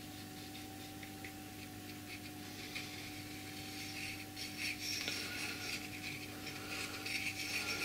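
Faint scratching and rubbing of a super glue tube's plastic nozzle drawn across a copper disc as the glue is spread, building up from about two and a half seconds in, over a steady background hum.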